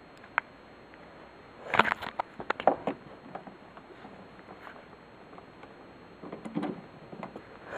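Handling noises: a single sharp click, then a cluster of clicks and clatter about two seconds in, and a few more knocks near the end, over a faint steady hiss.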